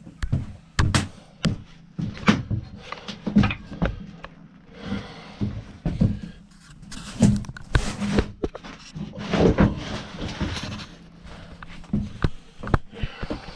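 Irregular clinks, knocks and rattles of hand tools and metal parts being worked on a motorcycle's twin carburetors, with a few longer stretches of hissing noise and a steady low hum underneath.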